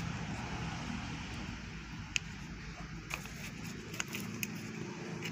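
A steady low background hum, with a few light clicks and taps from a hand handling clear plastic plant cups.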